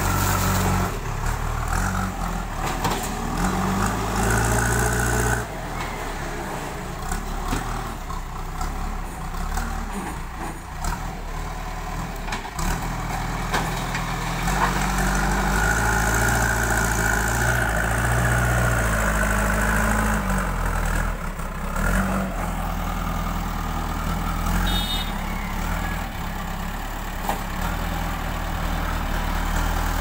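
JCB backhoe loader's diesel engine running under load as the front bucket scoops and lifts soil, its engine note rising and falling repeatedly with the work.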